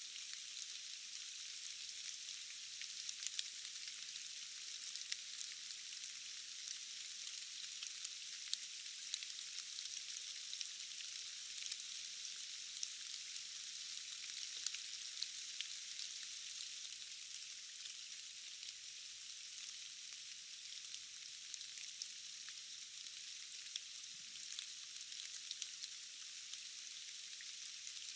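Steady rain: an even, high hiss with many small drop ticks scattered through it.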